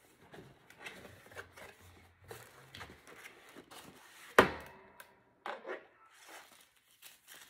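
Cardboard packaging handled: rubbing and scraping as a rigid perfume box is opened and its inner box slid out, with one sharp knock about four and a half seconds in.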